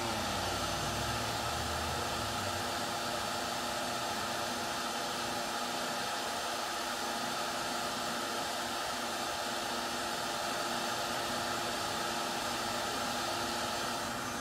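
Wet/dry shop vacuum running steadily, a hissing whine with a few fixed tones, drawing dust through a hose from an electric orbital sander. In the first two seconds a falling tone slides down as the sander is switched off and spins down.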